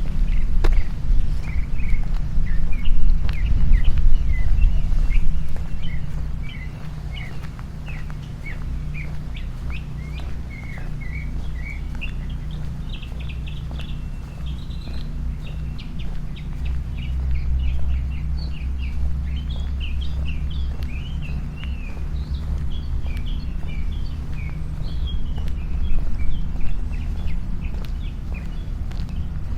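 A flock of small birds chirping continuously over a steady low rumble that is louder for the first six seconds or so.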